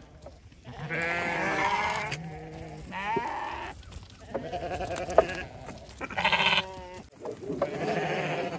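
Sheep bleating, about six wavering calls one after another with short gaps between them.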